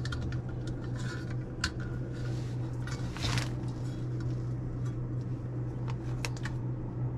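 Steady low hum of the WEN motor driving a lure-turning wheel with a popper lure mounted on it, with a few light metal clicks and a short rustle from handling, about a third and about halfway in.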